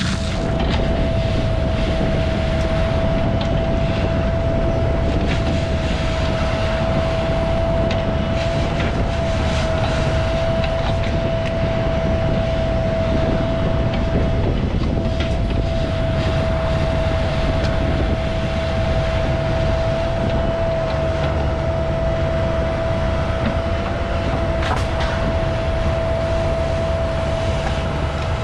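Construction machine engine running steadily under load, with a steady whine held at one pitch over the low rumble and a few faint clicks.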